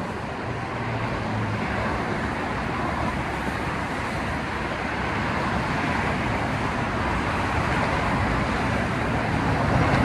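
Steady rush of passing road traffic on a busy multi-lane road, growing a little louder near the end.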